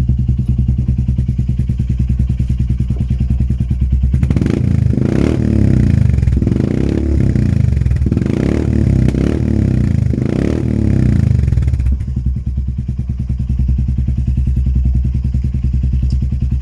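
Royal Enfield Meteor 350 single-cylinder engine idling through a Red Rooster straight-through exhaust with the baffle removed and the catalytic converter deleted. From about four seconds in, the throttle is blipped about five times, each rev rising and falling, before it settles back to idle near the end; it is much louder with the baffle out.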